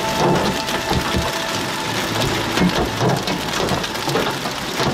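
Hail and heavy rain pelting a vehicle's roof and glass, heard from inside the cab: a dense, continuous clatter of many small impacts.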